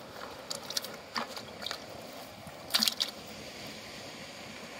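Cast net being handled and shaken out over a bucket, with a few short clicking rattles; the loudest cluster comes about three seconds in.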